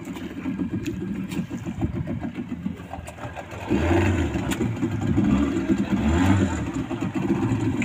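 Small boat's outboard motor running at low speed, a steady low rumble that grows louder about halfway through.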